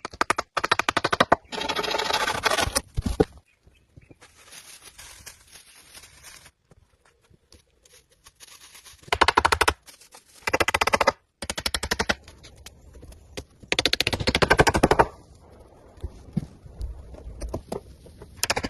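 Several bursts of very rapid, evenly repeated rattling strokes, each lasting a second or two, from hand tools working wood.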